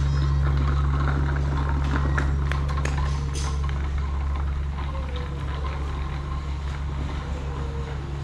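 Steady low engine-like hum, with scattered clicks and faint street sounds above it.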